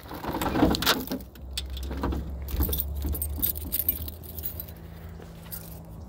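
A bunch of keys jangling on a keyring in the hand as the trunk of an old car is unlocked and lifted open, the jingling thinning out after about four seconds.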